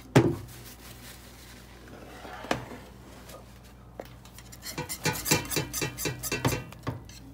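Metal balloon whisk stirring thick semolina-and-milk cream in a pot, its wires knocking and scraping against the pot: one sharp knock at the start, another about two and a half seconds in, then a quick run of strokes near the end.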